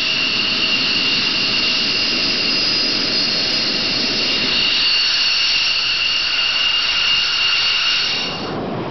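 Jet engine running with a steady high-pitched whine over a loud rush. Near the end the whine stops and a quieter rushing noise carries on.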